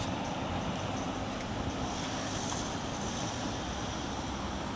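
Steady city street traffic noise from passing cars and a tram pulling away, with wind rumbling on the microphone.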